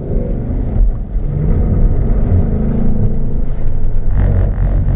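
2015 Ford Mustang GT's 5.0-litre V8 running hard, its pitch rising and falling with the throttle as the car drives through the cones.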